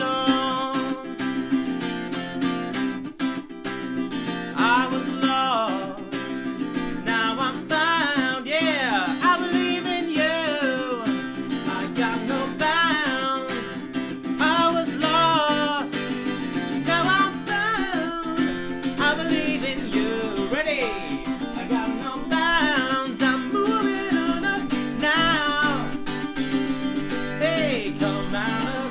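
Guitar strummed in steady chords with a man singing a melody over it.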